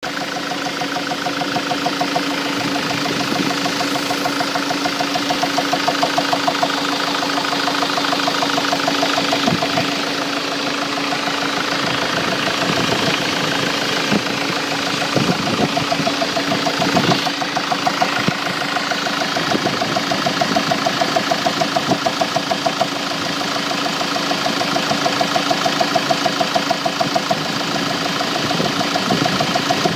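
Mk7 Ford Transit engine running at a steady speed with a rapid, regular knock, the engine knock the van is shown for.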